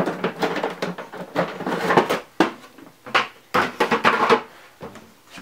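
Plastic knocks, rattles and scrapes as a panel is pulled off the plastic housing of an LG LHD659EBL dehumidifier. The handling is busiest for the first three and a half seconds and thins out near the end.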